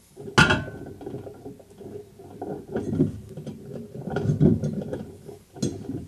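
Small clicks and rattles of house wiring and a plastic twist-on wire connector being handled as the neutral splice is unscrewed and the wires pulled apart, with a sharp click about half a second in.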